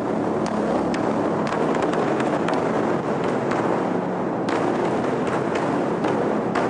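Several large hide-headed Chinese barrel drums beaten rapidly with sticks: a dense, continuous drumming with strikes following one another too fast to count.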